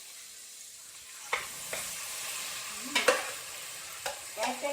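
Curry-seasoned chicken sizzling as it goes into hot cooking oil in a pot, with a spoon knocking against the pot several times, loudest near the end.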